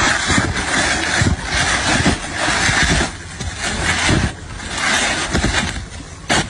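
An engine running loudly, its noise surging and dropping unevenly.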